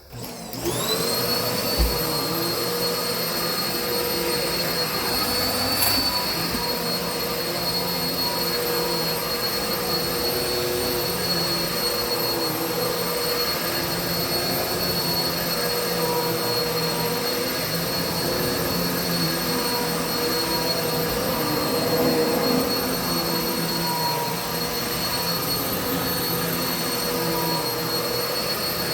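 Kenmore Progressive vacuum cleaner switched on, its motor whining up to speed within the first second, then running steadily with a high whine. A short knock comes about two seconds in.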